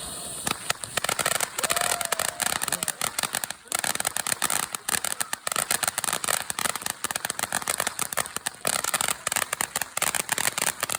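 Ground firework crackling: a dense, rapid, irregular stream of small sharp pops and crackles, starting about half a second in.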